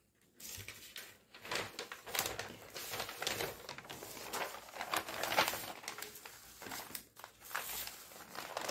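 Large sheets of brown pattern paper rustling and crinkling as they are lifted, shuffled and laid flat on a table, in an irregular run of crackly rustles.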